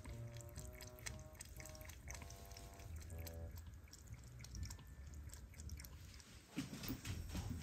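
A cat lapping water from a ceramic bowl: a quick run of soft wet clicks. A light tune of short notes plays over the first half, and louder low thumps come in near the end.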